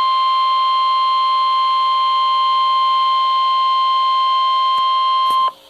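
NOAA Weather Radio's 1050 Hz warning alarm tone, the signal that a warning message follows, heard as a received radio transmission. It is one steady, loud, high tone that cuts off abruptly about five and a half seconds in.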